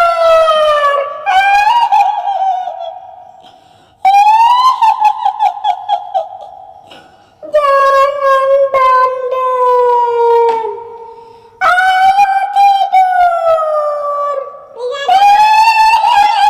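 High-pitched, drawn-out wailing of a woman's voice in the manner of a kuntilanak ghost, with about five cries, each gliding downward in pitch. Some waver as they go, and each trails off in a long echo.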